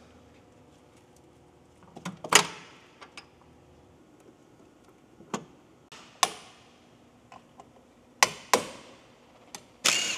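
Metal hand tools and sockets clinking and clanking against front brake hardware, in separate sharp knocks a second or two apart while the old brake parts are being taken off. Near the end comes a short, louder metallic burst.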